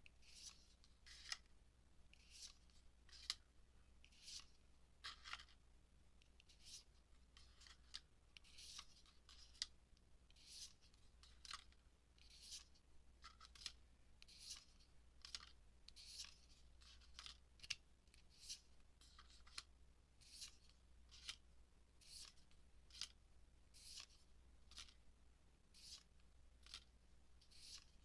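Faint, repeated swishes of Yu-Gi-Oh trading cards being slid and flipped against one another, about once a second.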